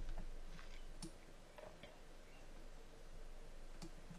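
Computer mouse clicking: a few sharp, scattered clicks over faint room hum.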